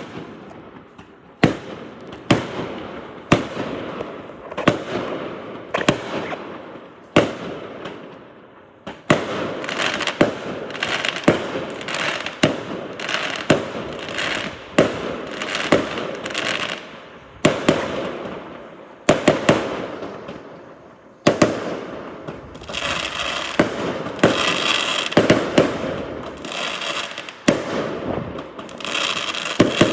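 Fireworks going off: a string of sharp bangs about a second apart, with dense crackling that builds from about nine seconds in and is thickest a little after twenty seconds.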